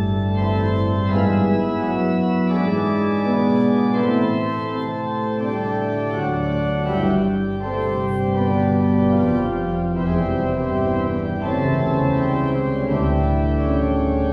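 Church organ playing slow, sustained chords over deep bass notes that change every few seconds.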